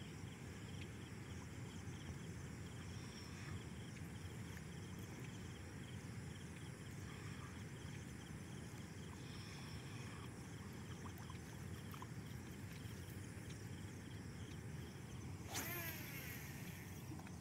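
Steady low outdoor background rumble at a lakeshore. About fifteen and a half seconds in, a brief sharp sound with falling pitch stands out.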